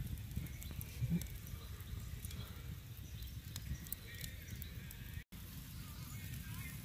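Faint crackling and sizzling of steaks on a steel grill grate over a wood fire, scattered sharp ticks over a low steady rumble. The sound drops out for an instant about five seconds in.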